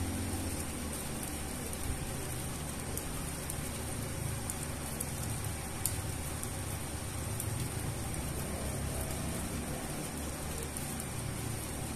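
Steady rain falling on wet concrete pavement: an even hiss with a few sharper drop ticks and a low rumble underneath.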